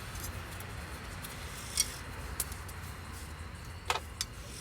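A few sharp metallic clicks and clinks of hand tools and brake hardware being handled, over a steady low background hum.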